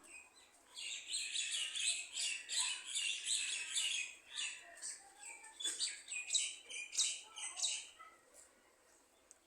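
Small birds chirping: a dense run of short, high, rapid chirps that thins out and stops about eight seconds in.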